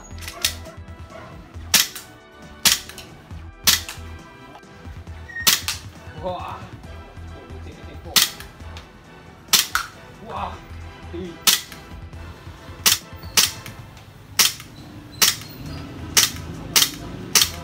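Airsoft pistol firing single shots, each a sharp crack. There are about seventeen shots at uneven gaps of roughly a second, coming closer together near the end.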